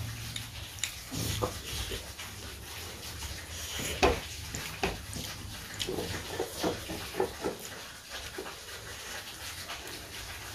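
Close-miked eating sounds: chewing with irregular wet mouth clicks and smacks, a quick run of them about six to seven seconds in.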